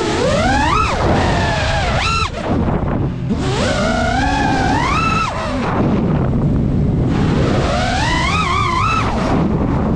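FPV drone's electric motors whining, the pitch sweeping up and falling back again and again with throttle changes. There are sharp climbs to a high whine about a second in, around two seconds, from about four to five seconds and again near the end, over a steady low rush.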